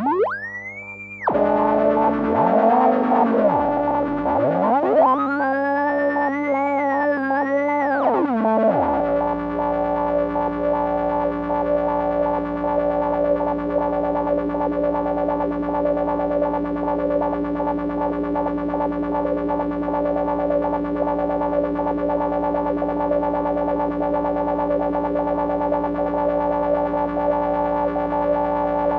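DIY Negistor cracklebox drone and noise generator played through a dual auto-filter. For about the first nine seconds its pitches glide up and down, then it settles into a steady drone of several held tones.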